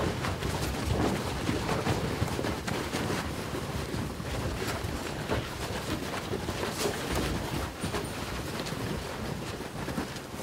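A tight group of people shuffling and scuffing their feet together on a dirt floor, with clothing rustling: a dense, irregular patter of small scrapes and knocks over a low rumble.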